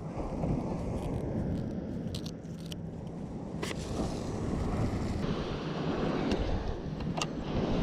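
Steady rumble of wind on the microphone with surf behind it, and a few sharp snips from scissors cutting bait fish on the sand in the first half.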